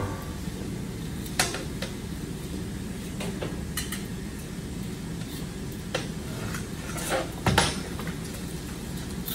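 Aluminium basin and long metal ladle knocking and scraping against the rim of a large aluminium cooking pot as rice is tipped into the broth: scattered clanks over a steady low hum.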